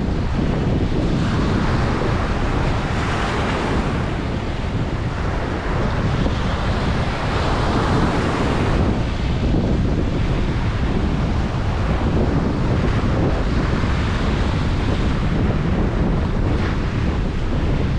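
Ocean surf washing onto a beach, the hiss of the breaking water swelling and fading several times, over a steady low rumble of wind on the microphone.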